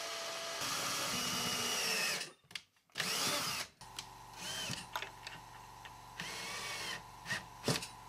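Cordless drill-driver running in bursts into a wooden cabinet panel, with its pitch rising and falling: one long run, a short second run, then brief revs and a couple of sharp clicks near the end.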